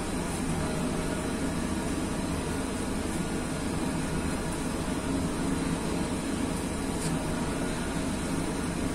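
A concerto of five rope-swung church bells tuned to E-flat major (E♭3, F♭... F3, G3, A♭3, B♭3), heard from the rope chamber below. The overlapping bell tones run together into a steady, dense wash with no single strokes standing out.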